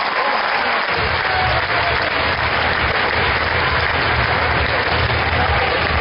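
Crowd applauding, a dense steady clatter of hands. About a second in, music with a deep, pulsing bass comes in under it.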